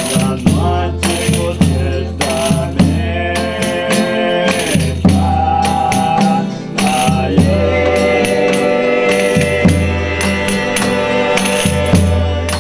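Folia de Reis folk music: a group of voices singing over strummed violas, a bass drum struck with sticks in a steady beat, and jingling tambourine. The singers hold long, drawn-out notes, one of them from about halfway through.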